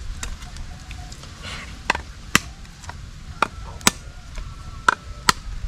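A coconut being cracked open with a knife, struck with bashing blows rather than chopping cuts. The blows come as three pairs of sharp knocks, each pair about a second and a half after the last.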